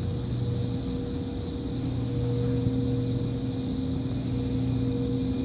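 Steady machine hum: a low drone with a few even, unchanging tones over a constant background noise.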